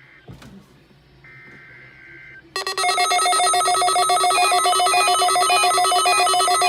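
Faint buzzing digital data tones of an EAS (SAME) header, then about two and a half seconds in a loud electronic alarm starts: a rapidly pulsing, trilling stack of several tones that keeps sounding. It is a weather alert receiver or EAS decoder alarming for a Required Weekly Test.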